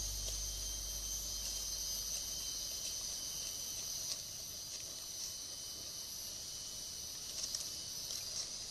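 Steady high-pitched drone of forest insects, with a few faint clicks near the end.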